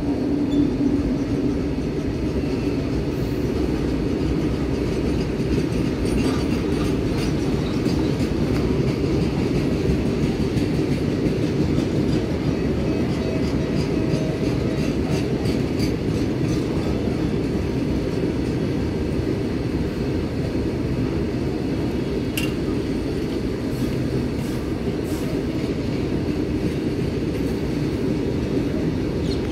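Loaded freight wagons rolling past on the track: a steady low rumble of wheels on rail, with scattered clicks and rattles and one sharper click a little over twenty seconds in.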